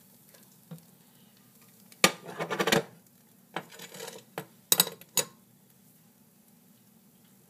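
A spatula scraping and knocking against a frying pan as scrambled eggs are tipped out, with a loud burst of clatter about two seconds in. Softer scraping follows, then a few sharp clacks as the spatula and pan are set down.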